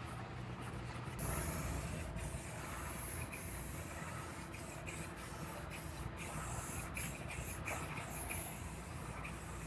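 Aerosol spray can spraying in several short bursts, with a few light clicks between.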